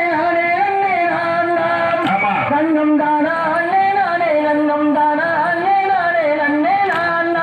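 A voice singing a Valli kummi folk song: one continuous melody of long held notes that glide up and down.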